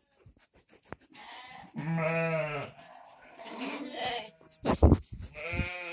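Sheep bleating: a long wavering bleat about two seconds in, a fainter call around four seconds, and another starting near the end. Around five seconds a few sharp, close bumps and rubs as a lamb noses the phone.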